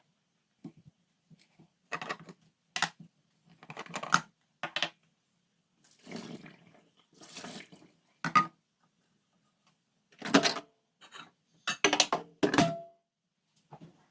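Dishes and food containers being handled while lunchboxes are packed: a series of separate clatters and knocks, with a short rustling stretch midway and a clink that rings briefly near the end.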